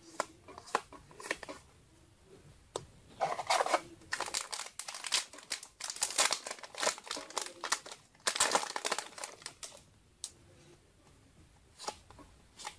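Foil wrapper of a trading-card booster pack crinkling and being torn open, with several stretches of rustling and a few sharp clicks from cards being handled.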